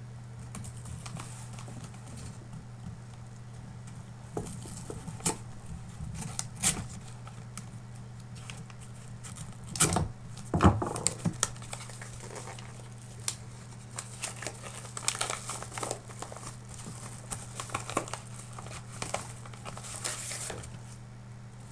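Padded paper mailer envelope being handled and torn open: intermittent crinkling, rustling and tearing of paper, loudest about ten seconds in, over a steady low hum.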